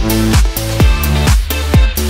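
Background music with a steady beat, a little over two beats a second.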